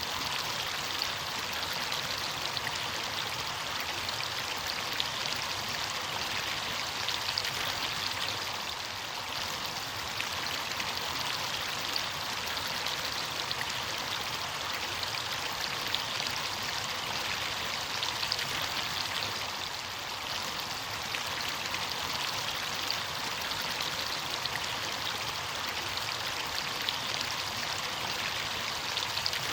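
Running water of a stream or small cascade, a steady splashing rush with fine droplet patter.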